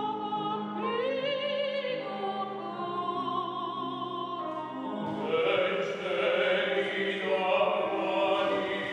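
Operatic singing with wide vibrato: a soprano holds long notes over steady keyboard accompaniment. About five seconds in, a cut brings in a different passage with a male opera singer.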